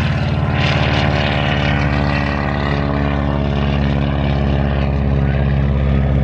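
Stearman PT-17 biplane's radial engine and propeller running steadily at high power, as on its takeoff run.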